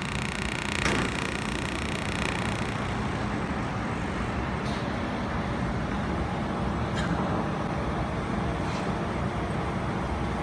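Four-axis laser welding machine welding a steel motor stator core: a steady machine hum, with the high hiss of the weld stopping about two and a half seconds in. A few sharp clicks come at intervals.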